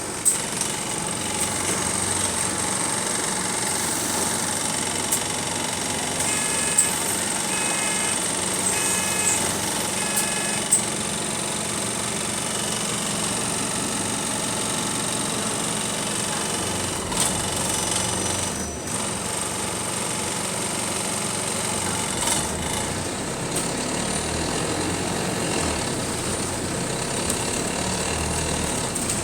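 Inside a moving bus: steady engine and road noise with rattles, odd knocks and a steady high whine. About a third of the way in come four short electronic beeps, about a second apart.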